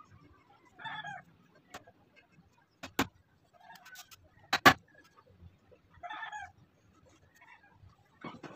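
Claw hammer striking the wooden crib frame: a couple of light taps, then two hard blows about three and nearly five seconds in. A short pitched animal call sounds twice, about a second in and again near six seconds.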